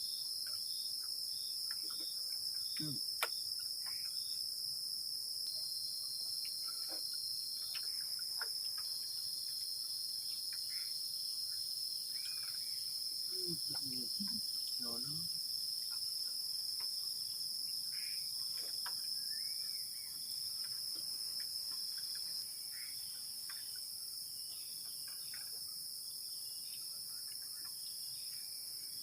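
Steady, high-pitched chorus of night insects, with a few faint clicks and knocks.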